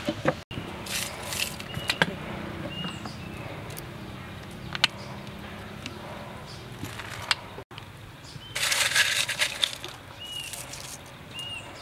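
Crushed ice crunching and clinking in a glass dessert cup as toppings are added, with scattered sharp clicks and two louder stretches of crunching, near the start and about three quarters of the way in.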